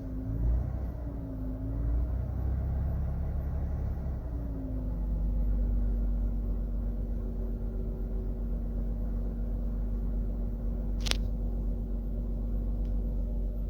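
Lexus IS300's engine running with a steady whine over its low rumble. The whine's pitch dips and comes back twice in the first two seconds, then holds steady, and a single sharp click sounds about 11 seconds in. The whine has survived a new timing belt, water pump, seals and VVT-i gear; the owner wonders whether it could be the oil pump.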